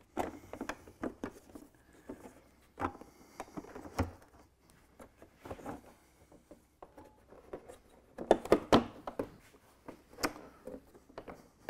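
Irregular knocks, clicks and light rattles of an ABS plastic door panel and its chrome trim molding being handled, shifted and pressed down on a workbench during a test fit, with a busier run of knocks about eight seconds in.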